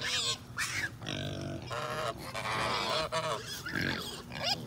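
A flock of geese honking, many loud calls one after another and overlapping.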